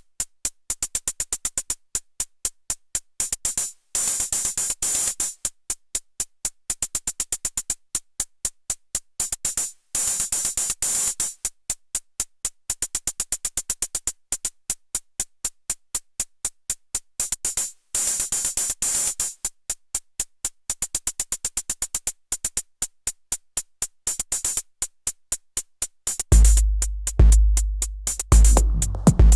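Elektron Analog Rytm drum machine playing a sequenced pattern of rapid, bright clicking hits, with brief breaks every several seconds. About 26 seconds in, deep low hits with a steady low pitch join, roughly one a second.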